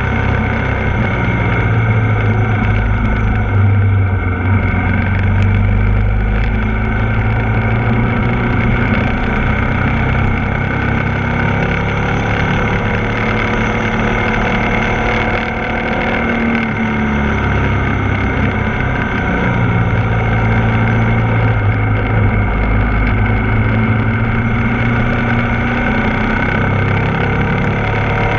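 Ducati Multistrada 1260 S's 1262 cc L-twin engine running under way through a series of bends. Its note rises and falls with the throttle and eases off briefly about halfway through.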